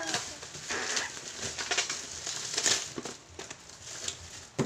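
Plastic bubble wrap crinkling and rustling in irregular bursts as it is handled and pulled open around a package, with a sharp click near the end.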